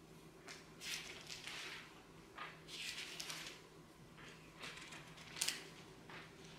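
Thin Bible pages being leafed through: a run of soft paper rustles and flips, with one sharper page flick about five seconds in, over a faint steady hum.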